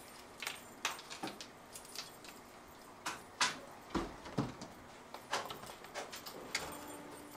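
Scattered light clicks and taps on a model railway layout as cats scramble over the tracks and scenery after a wand toy, with a heavier low thump about halfway through.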